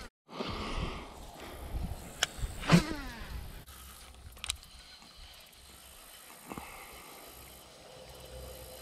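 Baitcasting reel being wound in on a buzzbait retrieve, with a few sharp clicks and one louder knock about three seconds in. Wind rumbles on the microphone underneath.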